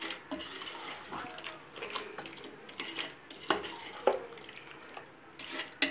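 A metal spoon stirring a thick, wet mix of chicken in yogurt in a stainless steel pot, with a wet churning sound and the spoon knocking against the side of the pot about seven times at irregular intervals.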